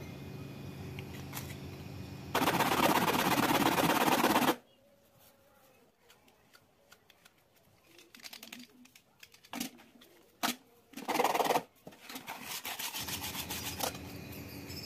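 PVC pipe being rubbed on sandpaper in bursts of rapid scraping, the loudest a couple of seconds in, with shorter bursts later. Scattered clicks and taps of handling fall between the bursts.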